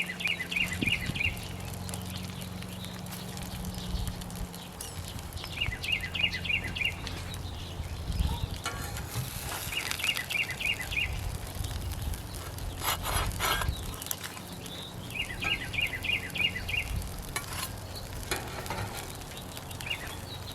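Food sizzling on a Blackstone flat-top griddle, with a few metal spatula scrapes and clicks. A bird sings a short, rapid high trill of about six notes four times, about every five seconds.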